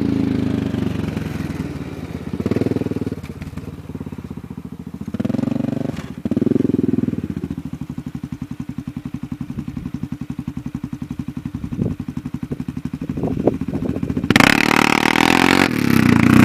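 Honda Rincon 680 ATV's single-cylinder four-stroke engine through an aftermarket Big Gun exhaust: revved in short blips, then idling with an even pulsing beat for several seconds, then revved hard near the end.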